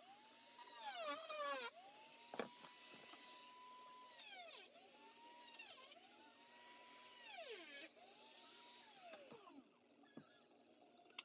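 Dremel rotary tool running with a steady high whine, its pitch sagging and the sound getting louder and rougher each time the bit bites into the blaster's plastic shell, several times over. About nine seconds in, the whine falls in pitch as the tool winds down.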